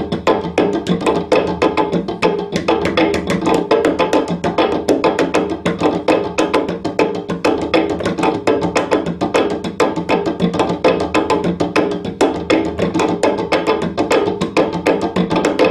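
Cello used as a sound box and struck by hand: fast, irregular tapping and knocking on its strings and wooden body, over steady ringing tones.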